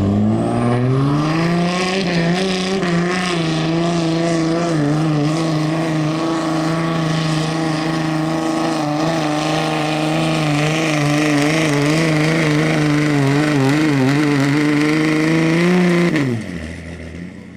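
Dodge Ram's Cummins turbo-diesel straight-six pulling a sled at full throttle under heavy load. The engine note rises as the truck launches, holds high and steady with slight wavers for most of the pull, then drops off sharply about sixteen seconds in as the throttle is let off at the end of the pull.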